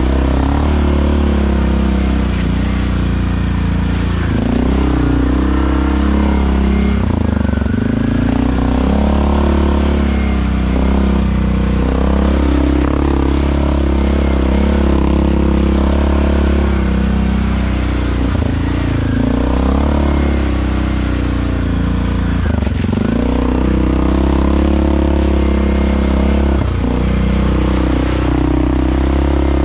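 ATV engine running under throttle as the quad is ridden, its pitch dipping and rising again several times as the rider eases off and gets back on the gas.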